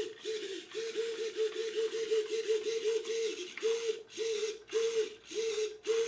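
Small RC servo whirring in short buzzes as it swings the boat's rudder from side to side under radio control, a check that the servo works. The buzzes come in a quick run at first, then slow to about two a second.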